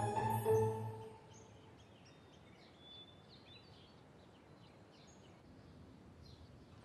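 A chiming music cue fades out in the first second, then faint birdsong: many short, high chirps over a steady background hiss.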